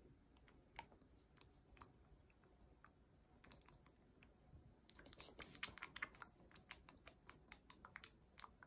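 Faint, quick clicks and taps of plastic hair curlers and pins being handled in the hair, gathering into a rapid run about five to six and a half seconds in.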